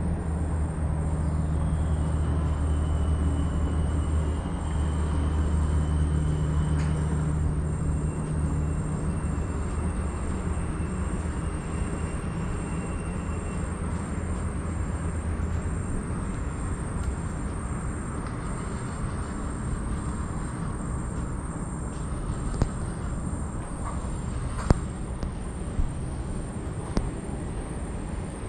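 Low, steady engine hum that fades out about nine seconds in, over a constant outdoor noise bed, with a few sharp clicks near the end.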